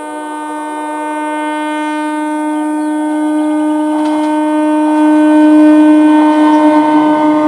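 EMU local train's horn held in one long, steady blast that grows louder as the train approaches. The running noise of the train comes up under it from about halfway through.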